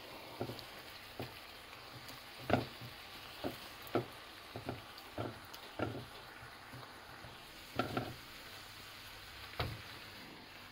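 A bean, tomato and vegetable mixture with freshly added cooked rice sizzling gently in a frying pan, with irregular light knocks and clatter every second or so.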